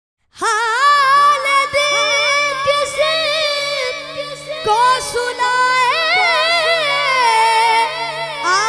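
A boy singing a naat into a handheld microphone: long, ornamented notes with a strong waver, starting about half a second in, over a steady low hum.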